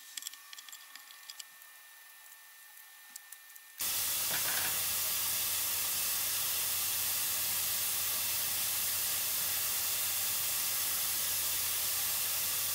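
A few faint light clicks, then about four seconds in a steady hiss with a low hum starts abruptly and holds evenly.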